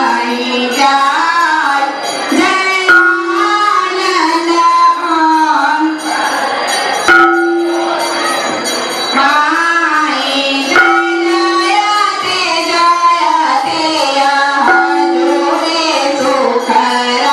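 Devotional aarti singing: voices carry a melody with long held notes, while bells ring and a few sharp metal strikes cut through.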